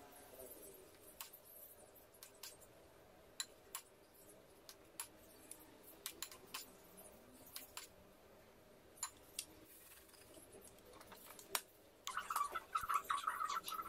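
A spoon clicking lightly and sparsely against a glass bowl and the metal molds of an electric madeleine maker as batter is spooned in. Near the end the lid closes and a fast, fine crackling starts as the batter begins cooking on the hot plates.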